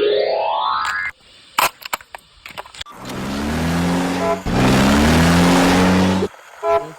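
Electronic sound effects: a rising whine, a few clicks, then two spells of recorded car-engine revving, and short beeping tones near the end.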